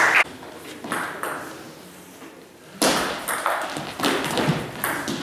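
Table tennis ball clicking against paddles and the table, a few sharp hits near the start, a lull, then a run of hits from about three seconds in.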